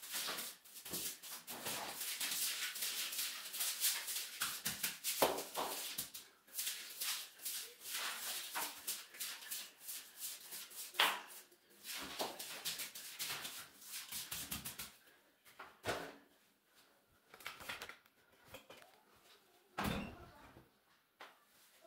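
Stiff-bristled broom scrubbing and sweeping a wet ceramic tile floor in quick, repeated strokes, pushing the water toward the drain. After about fifteen seconds the strokes become fewer and more spaced out.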